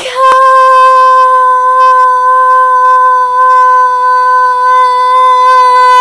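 A girl's voice holding one long, loud, steady high note: the drawn-out end of a yelled "Vodkaaaa".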